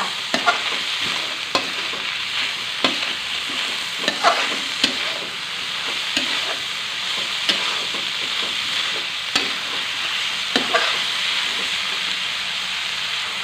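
Shredded mackerel tuna, chilies and tomatoes sizzling in a wok while a metal spatula stirs them, scraping and clacking against the pan at irregular intervals. The mixture is being cooked down until its added water has reduced and the seasoning is absorbed.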